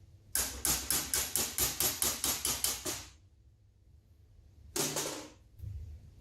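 A quick, even run of about a dozen sharp knocks, roughly four or five a second, like rapid hammer blows, then a single short noisy burst about five seconds in.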